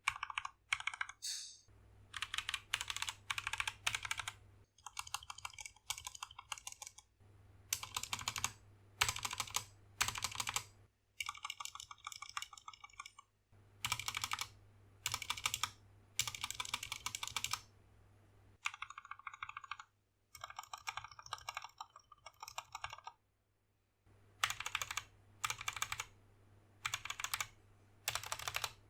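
Typing on a modded SK61 61-key mechanical keyboard with lubed Gateron Optical Brown tactile switches, an aluminium plate, a plastic case and XDA keycaps. Rapid keystrokes come in bursts of a second or two with short pauses between them.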